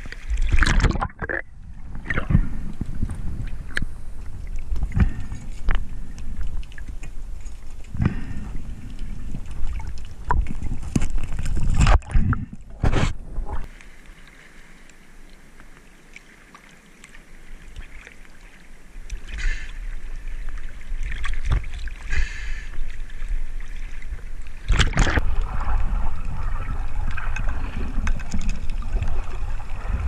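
Seawater sloshing and splashing around an action camera at the sea surface, with louder splashes near the start and about twelve seconds in, and a quieter stretch in the middle.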